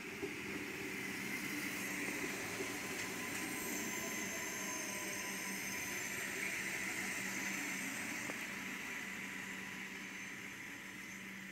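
Adelaide Metro Comeng 3000-class diesel railcars running in along the platform: a steady diesel engine hum over the noise of wheels on rails.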